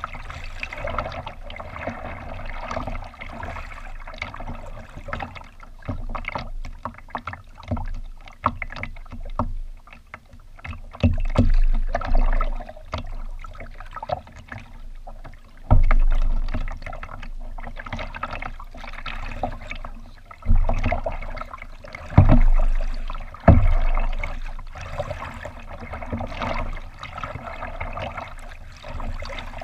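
Water lapping and splashing against a kayak's hull right beside the camera as the kayak moves along. About five heavy, dull thumps stand out, most of them in the second half.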